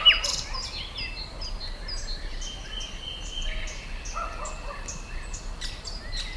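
Countryside ambience of small birds chirping and calling, with many short high notes scattered throughout and a longer thin steady note through the middle. The tail of a rapid run of falling notes ends right at the start.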